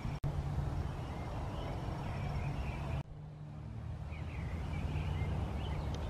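Songbirds chirping faintly here and there over a steady low rumble.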